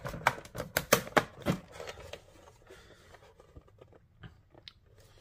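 Plastic clicking and rattling of AA batteries being fitted into an RC transmitter's battery compartment: a quick run of sharp clicks in the first second and a half, then a few faint ones.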